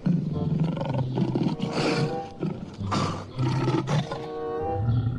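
Lion roaring sound effect: several long, low, growling roars in a row, with music underneath.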